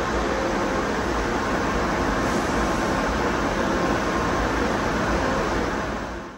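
Steady machinery noise in a car wash tunnel, a constant rumble and rush of air with a faint hum. It fades out in the last half second and cuts to silence.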